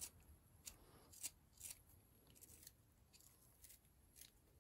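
Faint, irregular scrapes of a small carving knife shaving thin slivers off a small piece of wood, several short strokes in a row as the piece is rounded off.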